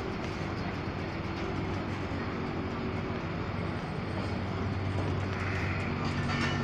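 Pakistan Railways economy-class passenger coaches rolling slowly past, a steady rumble of wheels on the rails that grows a little louder near the end.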